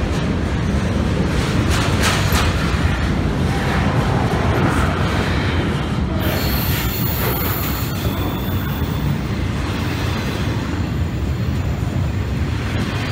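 Double-stack intermodal freight train passing close by: a steady rumble of well-car wheels on rail with a few clicks, and a high wheel squeal that starts about six seconds in and fades over a few seconds.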